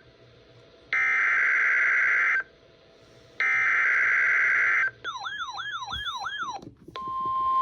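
Emergency Alert System SAME header: two bursts of screeching digital data tones, each about a second and a half long with a second's gap between. A warbling, siren-like alert tone follows, then near the end a steady 1050 Hz weather-radio alert tone starts, marking the start of a new severe weather alert.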